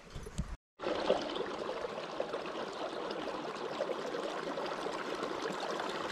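Small creek running steadily between shelves of ice and snow, a continuous trickling and gurgling of water.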